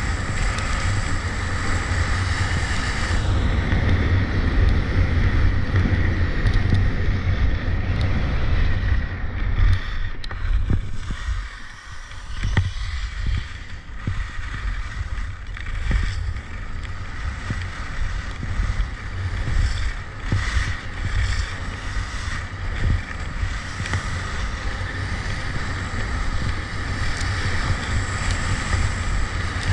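Wind buffeting the microphone of a camera carried by a skier going downhill, a steady low rumble with the hiss of skis sliding over the snow. It dips briefly about twelve seconds in.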